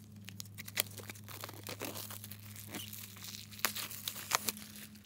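Plastic shrink wrap being torn and peeled off a CD album, with irregular crinkling and crackling.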